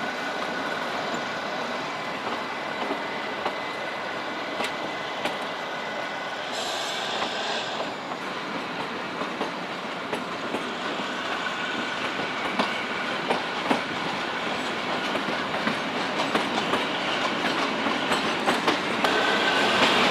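Narrow-gauge Kalka–Shimla toy train running along the track, heard from inside a carriage: a steady rumble with wheels clicking over the rail joints and a faint thin squeal from the wheels. It grows louder near the end as the train heads into a tunnel.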